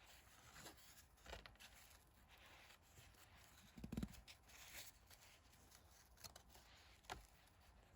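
Near silence with a few faint rustles and clicks of trading cards being handled and flipped, the most distinct about four seconds in.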